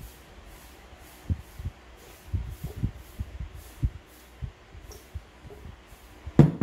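A person gulping and swallowing broth straight from a bowl, low irregular gulps about once or twice a second. Near the end comes one sharp knock, the bowl set down on the table.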